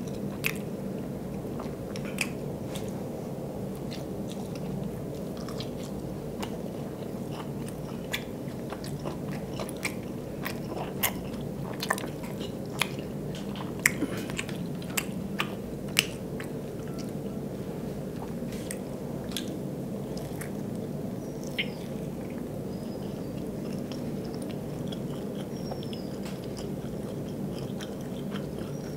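Close-miked biting and chewing of soft steamed vegetable momos, with many small sharp clicks and smacks, most of them in the first half.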